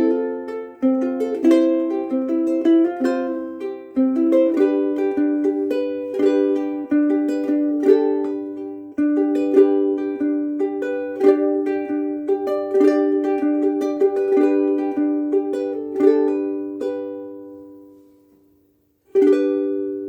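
Koaloha KSM-01 pineapple soprano ukulele with UkeSA strings played freely, plucked notes and chords ringing with long sustain. The playing stops and fades out, then one last chord is struck near the end and left to ring.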